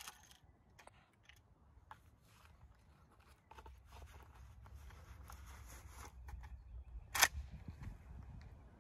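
Metallic clicks and rattles from handling a Henry lever-action rifle and working its action, with one sharp clack about seven seconds in. A low wind rumble comes in on the microphone after a few seconds.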